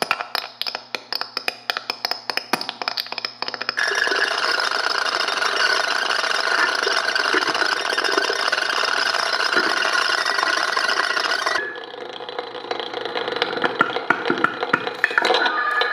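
Structure-borne feedback between piezo contact-microphone discs and loudspeaker cones: rapid clicking taps for the first few seconds, then a dense buzzing rattle with steady feedback tones in it, thinning to a lighter rattle about twelve seconds in.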